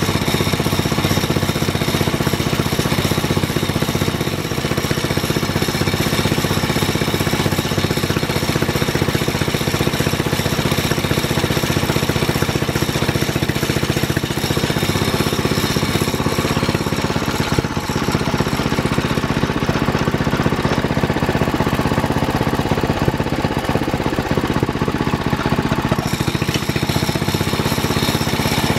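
Kohler K181 single-cylinder engine running steadily, its firing pulses quick and even, with emery cloth held against its spinning drive pulley to clean the grooves.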